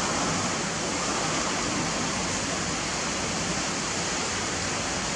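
Heavy rain falling steadily outside, a dense even hiss with no let-up.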